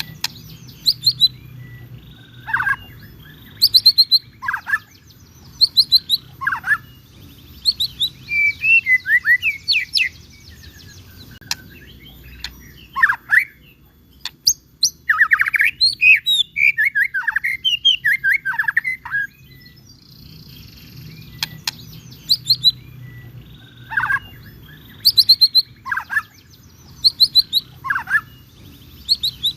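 White-rumped shama (murai batu) in full song: loud, varied phrases of rapid chirps and quick down-slurred whistles, delivered in bursts with short pauses between them.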